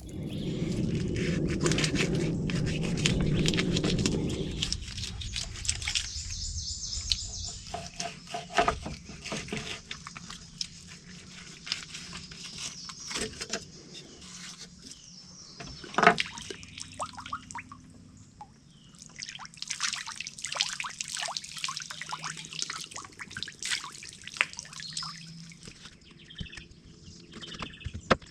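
Water splashing for the first few seconds, then scattered clicks and scrapes of a fillet knife cutting through buffalo fish ribs, working them into strips.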